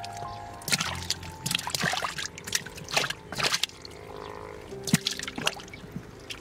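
Water splashing and sloshing in a run of irregular splashes, over background music with long held notes.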